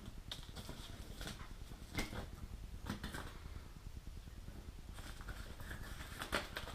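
Faint bench handling noises: scattered light clicks and rustles of small parts and wires being handled, with two sharper clicks about two and three seconds in.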